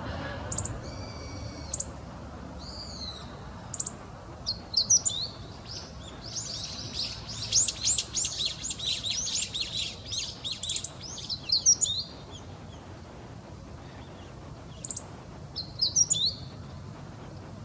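Meadow bunting singing: rapid phrases of high, quickly sweeping notes. The longest and loudest run is in the middle, with a few short calls before it and one shorter phrase near the end.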